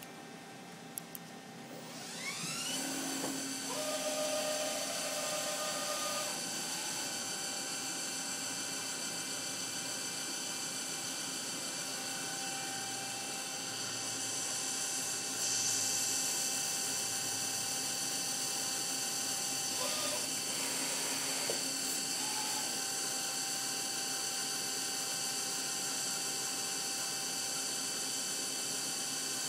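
CNC milling machine spindle spinning up about two seconds in, its pitch sweeping up, then running at a steady speed with a high whine. A few shorter motor tones come and go over it, near the start and again about two-thirds through.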